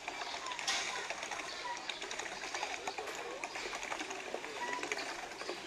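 Light, continuous splashing and clicking of hand-cranked paddle wheels churning pool water, with faint distant voices and short chirps mixed in.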